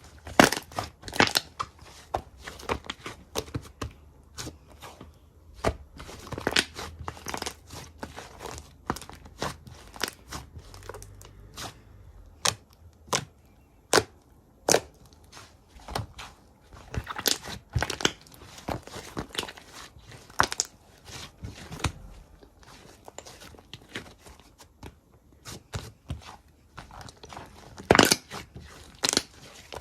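Slime being squeezed, pressed and stretched by hand, giving a run of irregular sharp pops and crackles, some in quick clusters; the loudest pops come just after the start and near the end.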